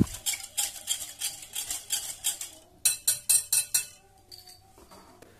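Wire whisk stirring a yeast, sugar and water mixture in a glass bowl, clinking and scraping against the glass in quick strokes, about four to five a second. The strokes grow louder for about a second in the middle, then stop.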